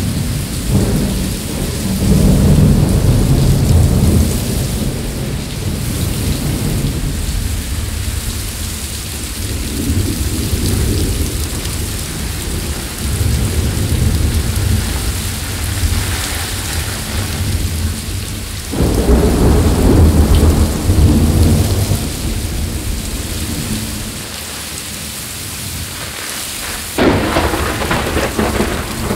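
Heavy tropical rain with near-continuous rolling thunder. Loud thunderclaps break in sharply about two-thirds of the way through and again near the end.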